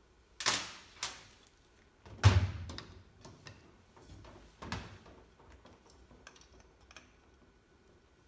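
Handling a PEX crimping tool and its die sets: two sharp clicks about half a second apart, a heavier clunk with a low thud a little after two seconds, another knock near five seconds, then a few light ticks.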